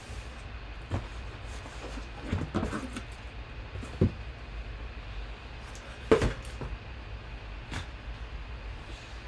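Sealed trading-card boxes being slid out of a cardboard shipping case and set down on a table: scraping cardboard and a few knocks, the sharpest about four seconds in and the loudest about six seconds in.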